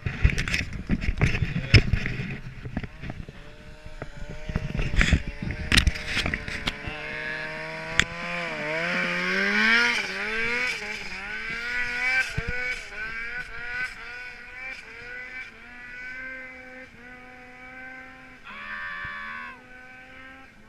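Loud knocks and rubbing of a camera being handled for the first several seconds. Then a turbocharged 2015 Ski-Doo Summit T3 snowmobile's two-stroke engine revs up and down as it climbs away, growing fainter.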